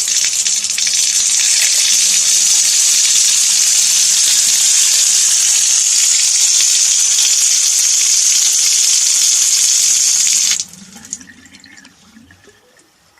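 Tap water running in a steady stream into a stone sink. The flow stops abruptly about ten and a half seconds in, leaving faint trickling and a few drips that die away.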